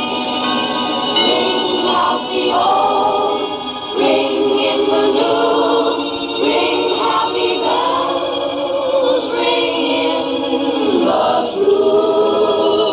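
Background music: a choir singing over held chords.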